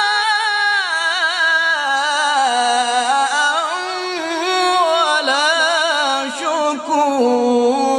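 A man reciting the Quran in the ornamented mujawwad style, drawing out a long wavering note on the word "jaza'an" with no pause, then starting "wa la" about five seconds in; the melody sinks lower near the end.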